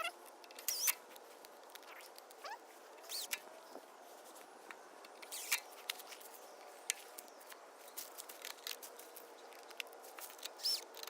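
Light, scattered clicks and taps of small carburetor parts being handled and fitted back together on a push mower, with a few faint short squeaks among them.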